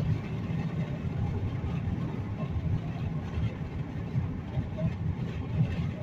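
Road noise of a car cruising at highway speed, heard inside the cabin: a steady low rumble of tyres and engine.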